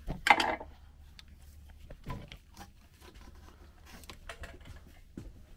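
Small clicks, taps and scrapes of metal as the water pump housing of a Mercruiser MR sterndrive is worked loose and lifted up the driveshaft, with one louder rasp near the start.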